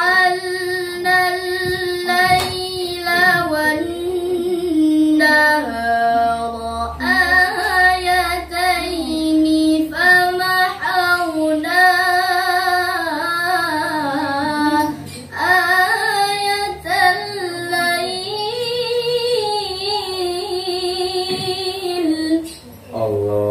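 A young woman singing solo without accompaniment: a long, ornamented melody of held notes with a wavering pitch and short breaks for breath. The singing stops shortly before the end.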